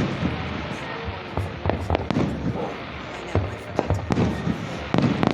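Fireworks finale: a rapid, irregular barrage of shell bursts and sharp bangs, several in quick succession, over a continuous low rumble.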